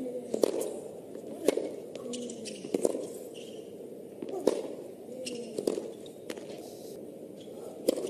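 A tennis rally on a hard court: sharp pops of racket striking ball, and the ball bouncing, about once a second.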